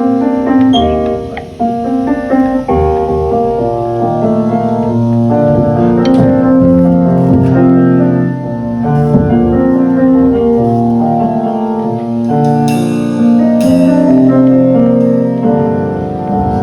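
Electric keyboard in a piano voice playing sustained chords and a melody line in an ensemble run-through, with two bright cymbal-like swells about thirteen seconds in.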